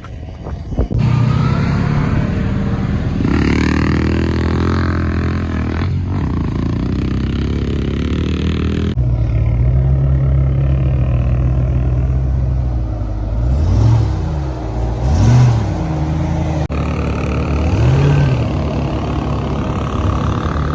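Vehicle engine running while driving, in several short clips joined with abrupt cuts, with three brief revs rising and falling in pitch in the second half.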